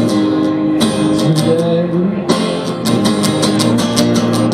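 Live singer-songwriter song: strummed guitar with a male voice singing a held word about two seconds in.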